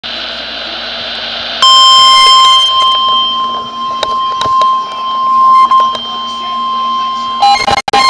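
Midland weather alert radio sounding the steady, loud NOAA Weather Radio warning alarm tone. The tone starts about a second and a half in, after faint hiss, and signals an incoming tornado warning. Just before the end it gives way to a pulsing alarm.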